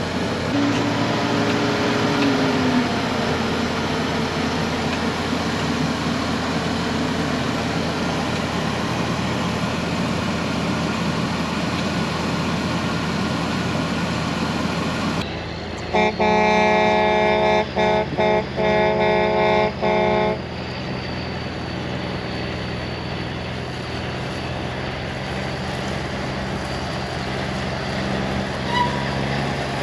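Semi truck running with steady engine and road noise. About halfway through, a truck air horn blows a quick series of short honks for about four seconds, the loudest sound here.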